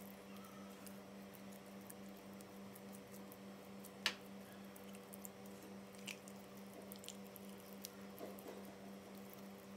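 Soft, wet squishing of hands rubbing thick chili masala paste into whole pearl spot fish in a steel bowl, with scattered small clicks; a sharp click about four seconds in is the loudest sound. A faint steady hum runs underneath.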